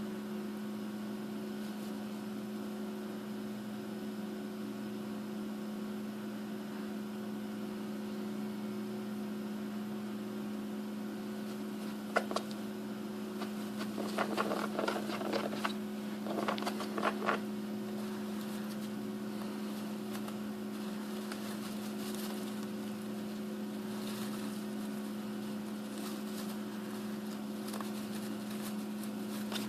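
A steady electrical hum, with a sharp click about twelve seconds in followed by a few seconds of scratching and rustling: a hamster digging and fluffing the bedding of its nest.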